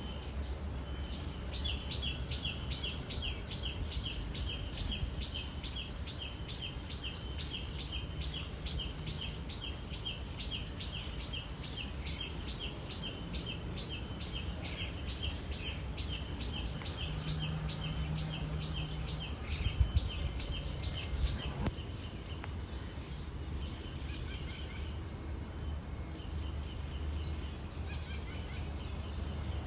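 Cicadas droning steadily in one loud, high-pitched band. Over it, a rapid even series of short chirps, about three a second, runs for most of the first twenty seconds and then stops.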